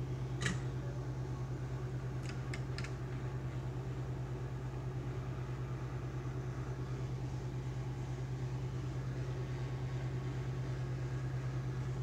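Hot air rework station blowing through its nozzle onto the laptop motherboard: a steady fan hum with a low, slightly pulsing drone, heating the old DC power jack's solder so its leftover pins can be pushed out. A click about half a second in and three light ticks a couple of seconds later.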